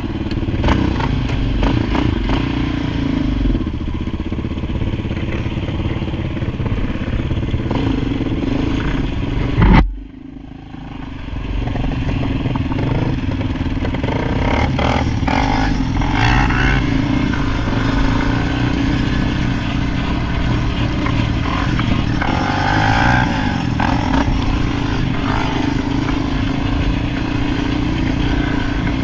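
ATV engines running. About ten seconds in there is a brief loud burst, then the sound drops off sharply for a second or two before the engines come back up.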